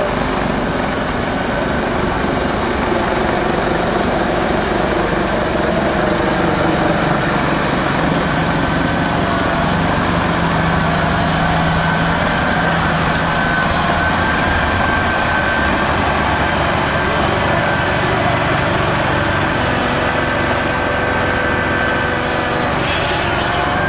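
Tractor-mounted rotary snow blower running steadily, its engine and spinning impeller throwing snow, with a thin steady whine over the machine noise.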